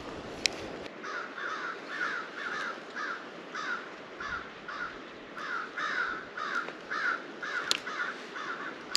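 Pflueger President 3000 spinning reel: a sharp click about half a second in as the bail closes after a cast, then the handle being cranked to retrieve the line, giving a steady rhythmic whir of about three pulses a second, one per turn.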